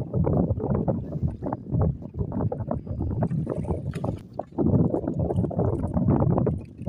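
Gusty wind buffeting the microphone aboard a wooden boat at sea, in uneven surges that drop away for a moment about four seconds in, with water sloshing against the hull.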